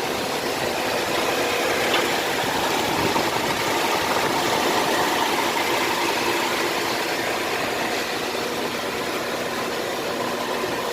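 A vehicle engine idling steadily, with a constant hum and no change in speed.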